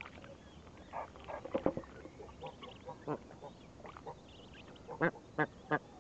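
Egyptian geese calling: scattered short calls and faint high-pitched peeps, then from about five seconds in an adult starts a rapid run of loud, evenly spaced calls, about three a second.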